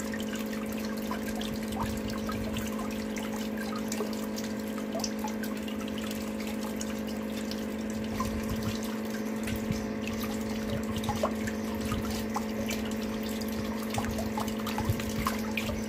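Water swirling and trickling in a whirlpool over a steady low hum, with scattered drips and small splashes, a few a little louder in the second half.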